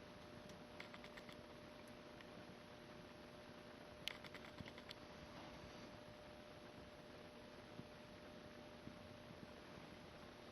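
Near silence: room tone with a faint hum, broken by a few faint clicks about half a second to a second in and a quick little cluster of clicks about four seconds in.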